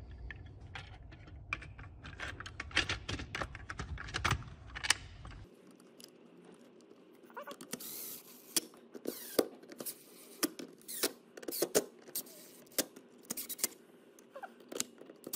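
Plastic tool-housing halves being pressed and knocked together with many small clicks, then a cordless Makita driver running in short bursts from about halfway in, driving screws into a Makita DHS680 circular saw's housing.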